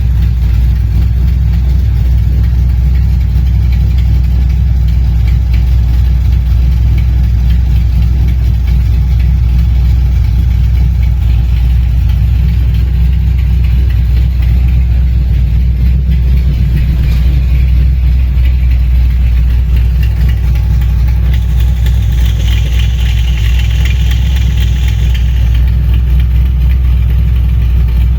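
Small-block Chevy V8 idling with a steady, even low rumble. A higher hiss joins for a few seconds about three-quarters of the way through.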